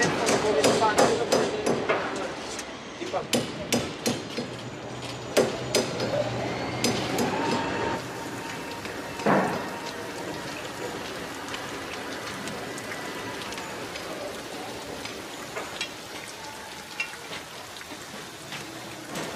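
Building-site sounds: hammer blows and metal clanks, coming quickly in the first eight seconds, then a steady hiss with a few scattered knocks. One louder clank comes about nine seconds in.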